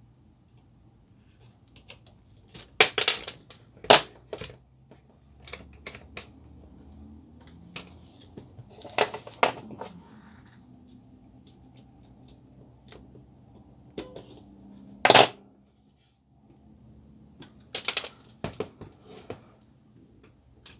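Sharp clicks and knocks of plastic and metal parts of a laser printer fuser assembly being worked by hand and set down on a table, coming in several short scattered clusters.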